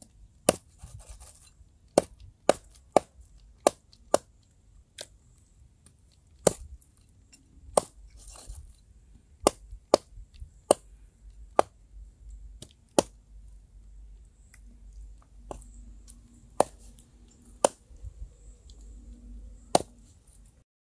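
Knife chopping food on a cutting board: single sharp strokes, irregularly spaced at about one to two a second, with a pause of a few seconds in the second half.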